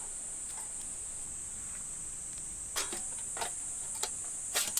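Flat metal panels of a folding wood stove clinking a few times as they are lifted out of the carry bag, about three to four short knocks in the second half. Behind them, a steady high-pitched drone of insects.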